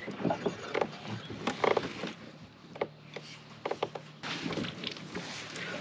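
A hooked bass being fought from a plastic fishing kayak: a string of irregular knocks, clicks and splashes from the rod, reel, hull and water, and the fish comes off.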